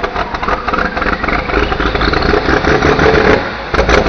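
A loud engine running, its level rising and falling.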